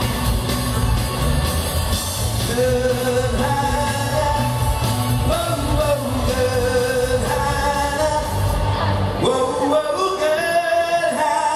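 Live band playing a song with a male lead singer. About nine seconds in, the bass and drums drop out and the voice carries on over lighter accompaniment.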